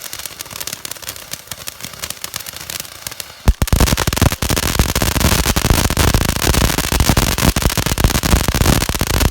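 USA Rocket crackling fountain firework spraying with a hiss and scattered crackles. About three and a half seconds in, it breaks into loud, rapid, dense crackle that continues steadily.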